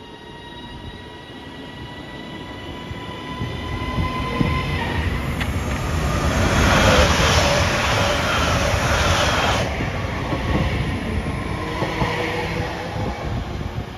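Class 331 and Class 397 electric multiple-unit trains at a station. A high steady whine drifts slightly lower over the first few seconds. Then a loud rush of wheel and air noise comes from about five seconds in until nearly ten as a train runs close past, and a lower rumble of wheels on rails carries on after it.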